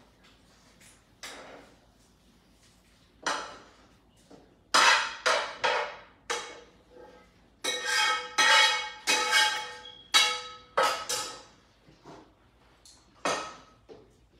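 Off-camera metal kitchenware clattering: pans and utensils knocking and clanking with a ringing tone, a few separate knocks and then two busy runs of clatter in the middle, while cooked chorizo and ground chuck are drained of grease.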